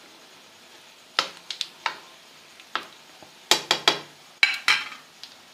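Metal spoon clinking and knocking against a cooking pan: a few separate knocks, then a quick run of clinks about three and a half seconds in, as the ghee tadka is spooned from the frying pan into the pot of methi.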